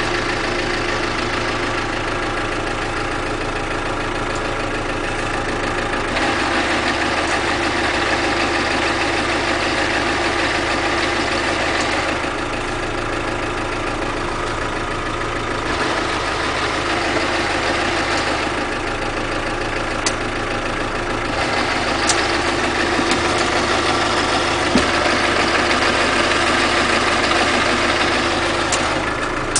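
Land Rover Defender running with the gearbox noise it is being recorded for: a steady mechanical drone with several held tones. Its low pitch switches back and forth between two settings every few seconds, with a few faint clicks near the end.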